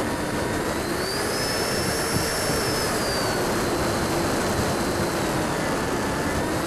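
Electric 70 mm ducted fan of a Freewing Hawk RC jet whining on a full-flap landing approach, over heavy rushing wind noise. The whine rises in pitch about a second in and eases back down a few seconds later as the throttle changes.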